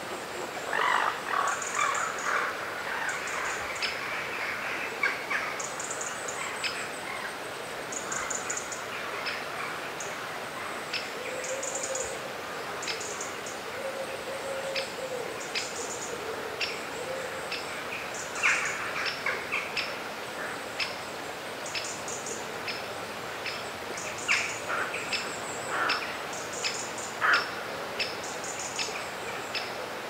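Birds calling: short, high chirps and ticks repeat all through, with louder, harsher calls breaking in every few seconds, and a lower drawn-out call for a few seconds a little before the middle.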